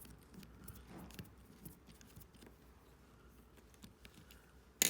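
Small screwdriver working the screws out of a remote control's circuit board: faint, scattered small metallic clicks and scrapes, with one sharper click near the end.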